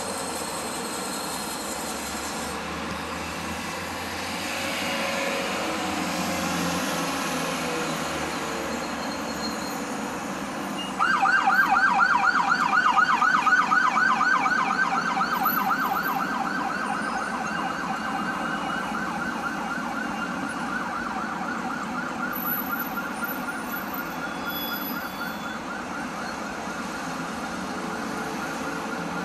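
Steady road traffic noise, then about eleven seconds in an emergency-vehicle siren starts suddenly in a fast yelp, rising and falling several times a second. It is loudest for the first few seconds and fades slowly as it goes on.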